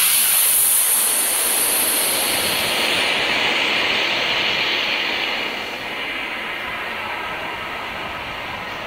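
Steady rushing hiss, brightest in the first few seconds and slowly fading.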